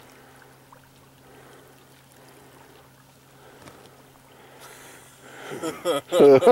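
A faint steady low hum with light water and wind noise, then a loud human voice breaking in about five and a half seconds in with repeated rising-and-falling calls.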